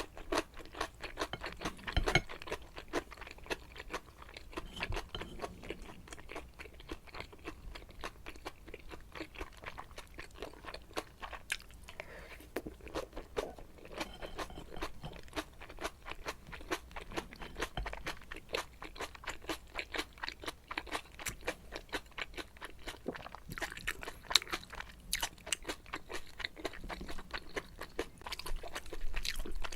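Close-miked chewing of jajangmyeon (black bean noodles) with squid and shrimp: a steady run of many quick mouth clicks and crunches.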